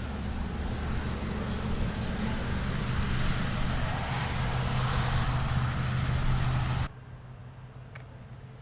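Large farm machine engine running steadily under load with a low drone. It cuts off abruptly about seven seconds in, leaving a much quieter background with a single faint click.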